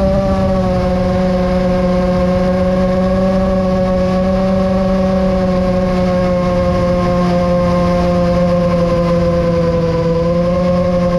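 Seven-inch FPV quadcopter's brushless motors and propellers whining steadily at cruise, with wind rushing over the onboard camera. The whine's pitch sags slightly at the start and dips again about ten seconds in.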